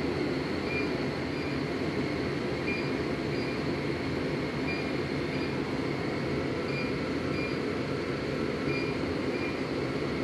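Steady machine-room drone with faint short high electronic beeps that repeat in pairs about every two seconds.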